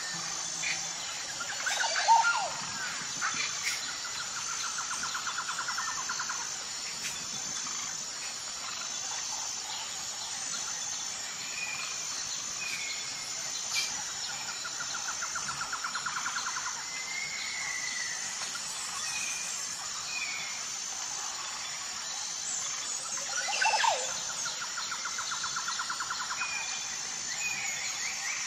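Outdoor ambience of insects chirring steadily in a fast pulsing rhythm under birdsong: scattered short chirps and a buzzy trill of about two seconds, heard three times. Louder swooping calls about two seconds in and near the end are the loudest sounds.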